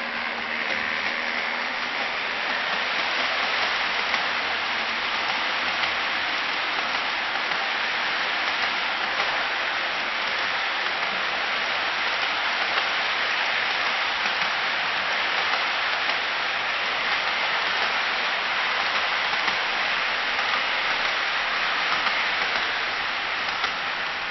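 N gauge model freight train, two EF81 locomotives hauling twelve container wagons, rolling along the track with a steady, even rattle of small wheels on rail joints. A faint whine from the locomotive motors shows near the start.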